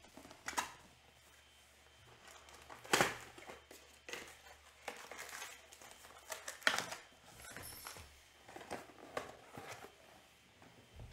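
Trading card packs and cards being handled: plastic wrappers crinkling, with irregular short crackles and taps, the loudest about three seconds in and again near seven seconds.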